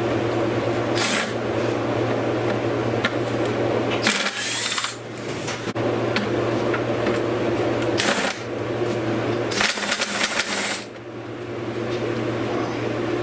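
Cordless impact driver running in four short rattling bursts as it backs small bolts out of a car tail light housing, hammering hard enough to start stripping them. A steady hum sits underneath.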